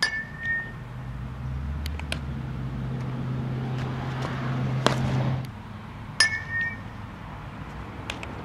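Metal softball bat hitting a softball twice, about six seconds apart, each hit a sharp crack with a short high ringing ping. Between the hits comes a single sharp smack.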